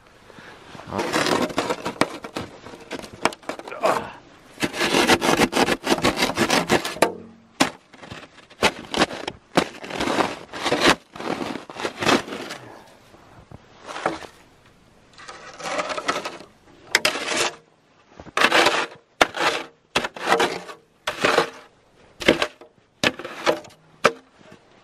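Snow shovel scraping and chopping into a hard, frozen snowbank: crunching, scraping strokes, one long run in the first few seconds, then many short strokes with brief pauses.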